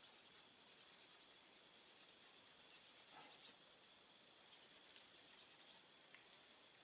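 Faint, steady scrubbing of steel wool against a small steel part of a Smith & Wesson .38 Special revolver, with many quick short strokes, rubbing off light rust or dingy residue.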